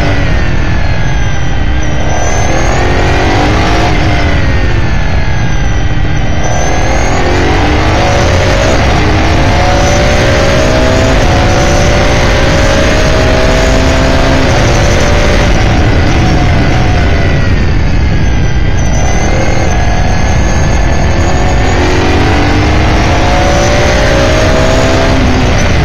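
S5000 open-wheeler's 5.0-litre Ford V8 heard onboard at racing speed, its pitch climbing steeply through the gears on full throttle and dropping back with downshifts under braking, several times over.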